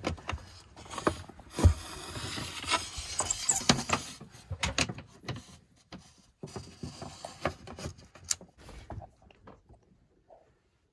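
Handling noise from wiring work inside a camper cabinet: irregular knocks and clicks, with two longer stretches of scraping, about two to four seconds in and again around seven to nine seconds.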